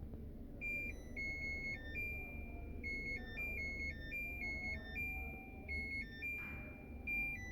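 A shrill electronic beeping tune: a buzzer plays a quick melody of short notes that step between a few high pitches, starting about half a second in and still going at the end.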